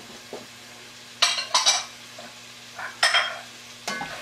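Spoon stirring freshly added chopped carrots, celery and onion in a cast-iron pot, scraping across the bottom in a few quick strokes about a second in and again near three seconds, over the vegetables frying quietly.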